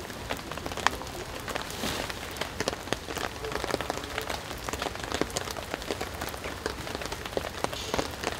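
Rain falling steadily, a dense patter of many small drops.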